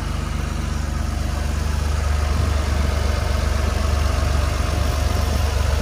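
Toyota Supra RZ's twin-turbo 2JZ-GTE inline-six idling steadily, running smoothly with no belt squeal.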